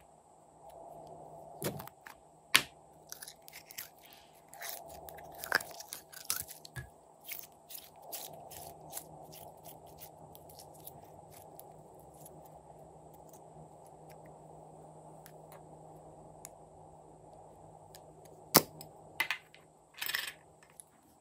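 Sticky slime being squeezed and pulled apart by hand, giving bursts of sharp crackles and pops, busiest in the first few seconds and again near the end, over a steady low hum.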